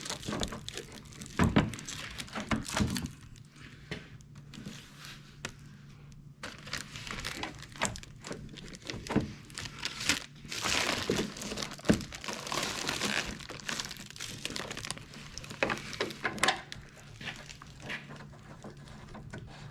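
Hands working a plastic headlamp assembly into its mounting: scattered clicks, knocks and crinkling plastic rustles, with a denser stretch of rustling about halfway through, over a faint steady hum.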